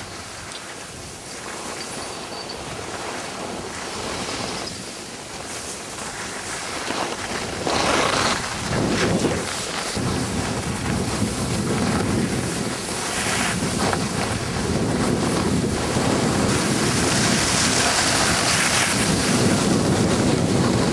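Wind rushing over the camcorder microphone while skiing down a piste, mixed with the hiss of skis sliding on snow, growing steadily louder.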